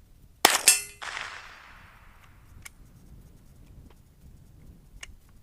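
A single bolt-action rifle shot: a sharp crack with a second crack about a quarter second after it, then a rolling echo that fades over about a second and a half. A few faint small clicks follow later.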